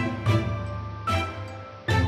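Instrumental background music, with distinct struck notes of a melody sounding every half second to a second.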